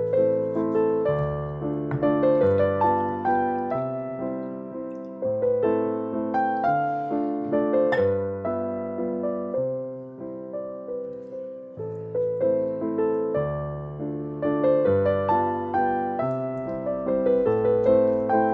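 Background piano music: a melody of struck notes over changing bass notes.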